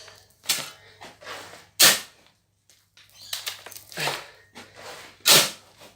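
Work packing dirt into a wooden forge box: two sharp knocks about three and a half seconds apart, with softer scraping and rustling in between.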